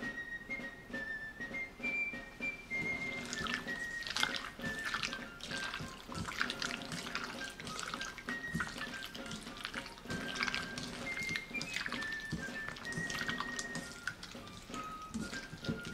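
Background music with a single high melody line over low sustained chords. From a few seconds in, over the music, the wet squelching and sloshing of a hand squeezing and mixing chicken thigh pieces in beaten egg and soy marinade in a stainless steel bowl.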